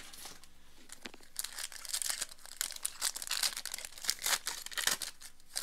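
A football card pack's wrapper crinkling and being torn open by hand: dense, rapid crackling that starts about a second in and stops just before the end.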